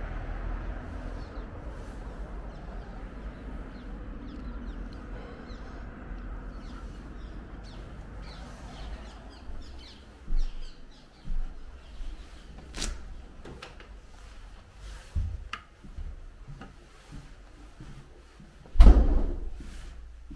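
Scattered knocks and clicks, then one loud thump near the end, over a low rumble that fades away in the first half.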